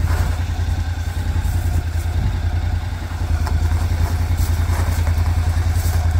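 Honda NC700X motorcycle's parallel-twin engine idling steadily, ready to ride off.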